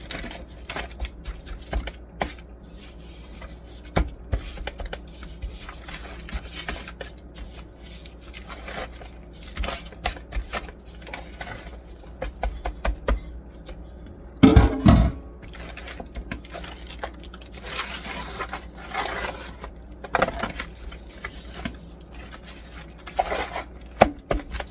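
Kitchen handling sounds of a dry spice rub being packed onto raw ribs in a pan: scattered scrapes and light knocks of the pan. One louder bump comes about halfway through.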